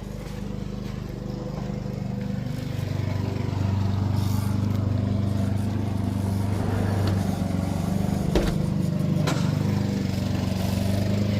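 An engine running steadily, growing louder about three and a half seconds in, with two sharp clicks near the end.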